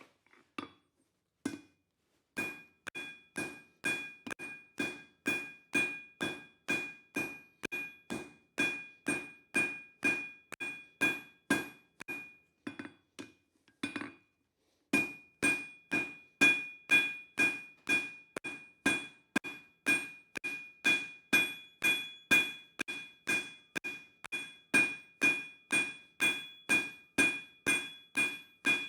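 Cross-peen hammer blows on hot coil-spring steel over an anvil, spreading the chisel blade wider. The blows come steadily at about two a second, each with a ringing tone, with a brief pause about halfway through before the hammering resumes.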